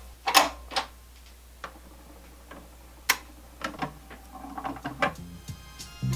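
Record turntable being started: the start lever clicks, the motor hums low, and a sharp click about three seconds in is followed by scattered crackle and pops from the Shure M44E cartridge's stylus tracking the vinyl.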